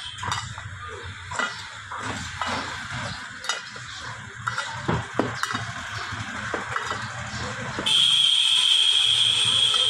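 Light metal clinks and scrapes of a spanner working the handle nut on an aluminium pressure cooker lid. Near the end a loud, steady high-pitched tone starts suddenly and holds, louder than the clinks.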